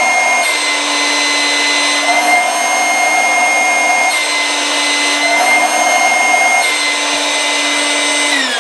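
Centrifugal fan stage of a 12 V two-stage inflatable air pump running, its outlet blocked and unblocked about three times. Each time it is blocked the rush of air drops away and the motor's whine steps up slightly as it speeds up, because the fan is moving less air and drawing less current. Near the end the motor is switched off and its whine falls as it spins down.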